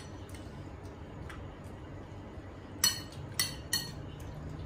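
Spoon and tableware clinking against dishes: three quick, ringing clinks close together about three seconds in, with a few lighter taps around them.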